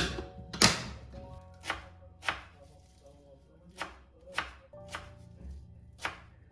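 A kitchen knife chopping on a cutting board: about eight sharp strokes at an uneven pace, with a couple of short pauses between them.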